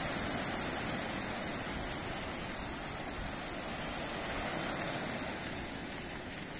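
Surf: small waves breaking and washing up the beach, a steady rushing noise.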